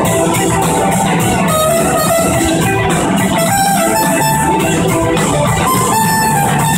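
Live blues-rock band playing loud: electric guitars over bass and drums, with a trumpet playing sustained notes into the microphone, recorded from the audience.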